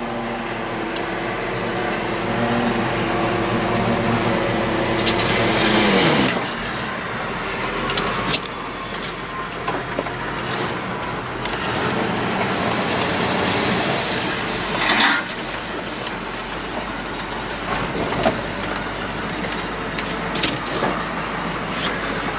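The dump bed's hydraulic lift pump whines steadily as the bed raises; about six seconds in it stops, its pitch falling away. Then the truck's engine keeps running while the load of brush and limbs slides out of the bed, with scattered knocks and clatters.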